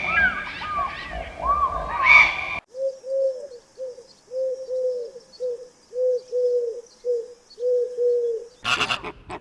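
Animal calls: a flurry of overlapping higher calls, then, after a sudden cut, a run of short, low, arched cooing notes at one pitch, about two a second.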